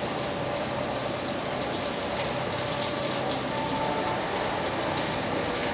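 Steady outdoor urban background noise: a constant hum and hiss with no distinct events standing out.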